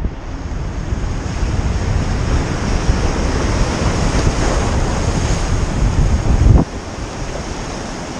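Surf washing onto the shore with wind buffeting the microphone in a heavy low rumble; the loudness drops abruptly about six and a half seconds in.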